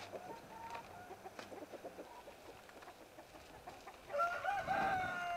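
Chickens clucking quietly, then about four seconds in a rooster crows: one long call that wavers at first and then holds a steady pitch.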